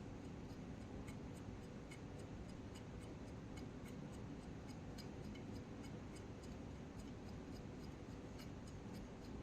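Faint, regular light clicking, about two to three ticks a second, as the plastic propeller of a rubber-band powered balsa model airplane is turned by hand to wind up its rubber motor.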